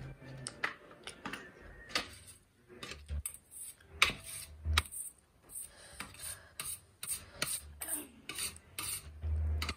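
Close-miked eating sounds: steel chopsticks clicking and scraping against a steel tray while picking up noodles, with many sharp irregular clicks and a few dull low thumps.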